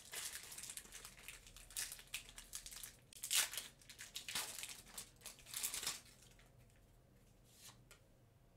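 Pokémon booster pack's foil wrapper crinkling and tearing as it is pulled open by hand, a quick run of sharp rustles over the first six seconds, the loudest about halfway through. Then only faint handling.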